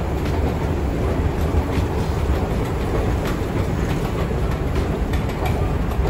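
Subway train running: a steady, loud low rumble.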